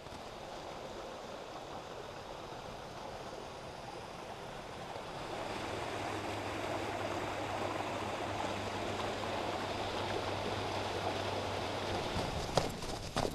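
Small creek cascading over rocks beneath snow and ice: a steady rush of running water that grows louder about halfway through. A few crunching footsteps in snow near the end.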